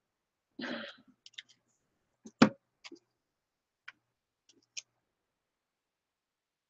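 Scattered light clicks and taps as hands pick up and handle a paper collage card on a craft table. A short rustle comes just under a second in, and the loudest tap about two and a half seconds in.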